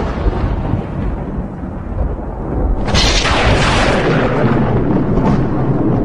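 Wind blowing hard with a deep rumble of thunder underneath. A louder swell comes about three seconds in and fades away over the next second or so.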